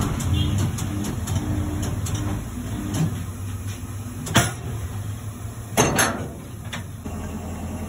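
Tyre-fitting work: a steady low machine hum that weakens a couple of seconds in, then four sharp knocks in the second half, two of them close together.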